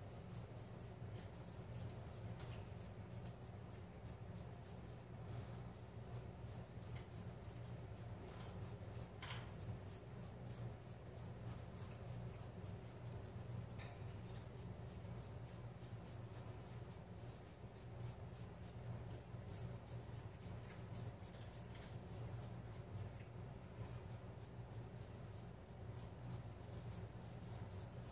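Charcoal pencil scratching across sketch-pad paper in rapid, repeated hatching strokes, several a second, over a low steady hum.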